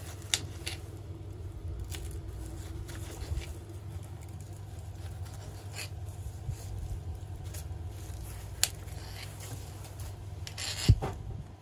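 Knife blade clicking against a glass cutting board while strawberries are sliced: scattered sharp clicks, with one louder knock near the end, over a low steady hum.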